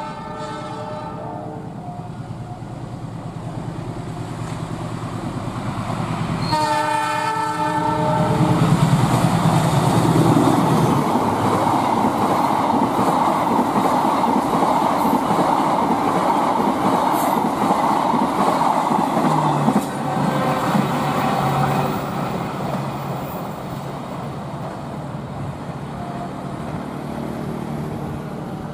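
Diesel locomotive horn sounding as the train approaches, with a second short blast about seven seconds in. The train then passes at high speed with a loud rumble and clickety-clack of coach wheels on the rails. The noise slowly fades over the last several seconds.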